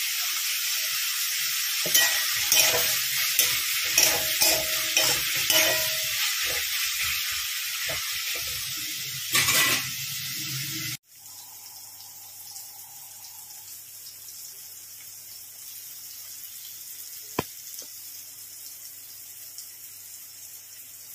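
Chopped onion, capsicum and tomato sizzling in oil in a metal kadai, with a spatula clattering and scraping against the pan from about two seconds in. About halfway through the sizzle cuts off abruptly, leaving a faint low hum and a single click.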